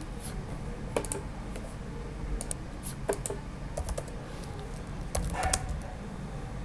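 Computer keyboard keystrokes: scattered single clicks and short runs of typing, with pauses between them.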